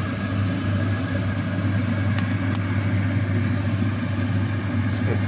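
A steady low machine hum with an even hiss over it, and a couple of faint ticks a little over two seconds in.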